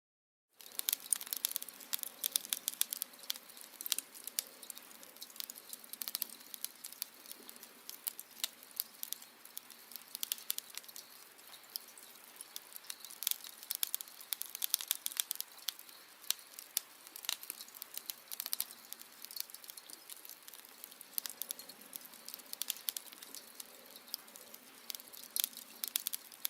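Wood fire crackling: dense, irregular pops and snaps over a soft steady hiss.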